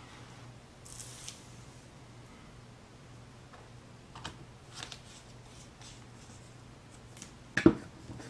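Small handling noises over a low steady hum: a brief rustle about a second in, a few light clicks around four to five seconds, and a sharper knock near the end.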